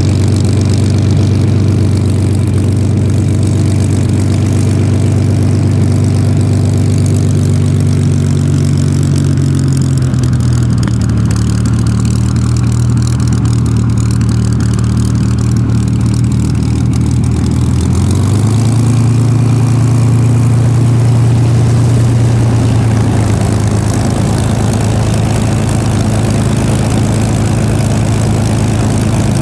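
Supermarine Spitfire's Rolls-Royce Merlin V12 engine running at low power, loud and steady. Its pitch drops about a third of the way in as it is throttled back and rises again a little past halfway.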